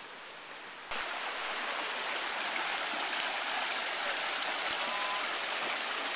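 Shallow rocky stream rushing and splashing over stones, cutting in suddenly about a second in after a quieter stretch of outdoor hiss.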